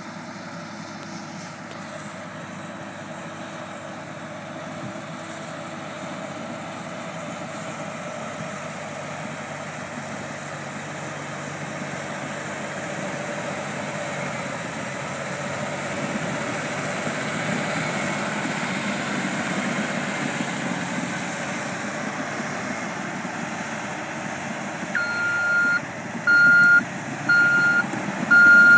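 Diesel engine of a tracked bulldozer working mud, getting steadily louder as it comes closer. About 25 seconds in, its backup alarm starts beeping at a steady pace, a bit more than once a second.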